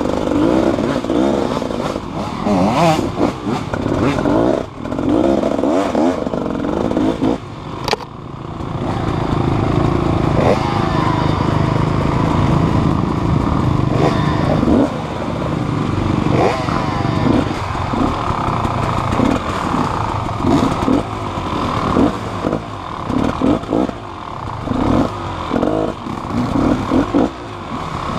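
Small motorcycle engine running and revving, its pitch rising and falling again and again, with a few sharp clicks and clatters.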